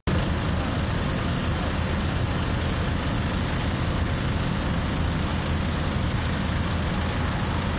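Diesel farm tractor engines running steadily as the tractors drive past, a constant low engine hum under a broad wash of noise.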